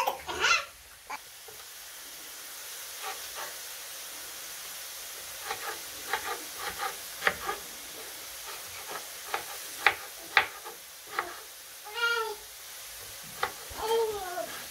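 A kitchen knife chops tomatoes on a wooden cutting board in a run of short, sharp, uneven taps over the steady sizzle of potatoes frying in oil. A few short, high, whiny cries come near the start and twice near the end.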